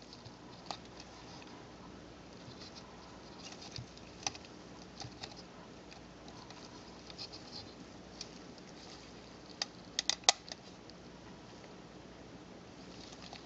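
Faint handling clicks and rustle of a Panasonic Lumix ZS10 camera's plastic and metal body parts being fitted back together in gloved hands, with a quick cluster of sharper clicks about ten seconds in.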